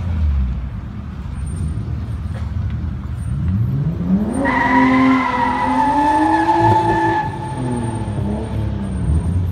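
Car engine revving up hard. At the top of the revs a high squeal holds for about three seconds, then the revs fall back.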